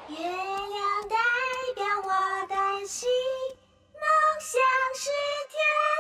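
Ending theme song: a high voice singing a melody in Mandarin over light backing music. The voice breaks off for about half a second a little past the middle, then carries on.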